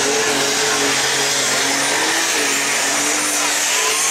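A Super Stock pulling tractor's turbocharged, methanol-fuelled engine running flat out under load during a pull: a loud, steady drone whose pitch dips slightly about two seconds in.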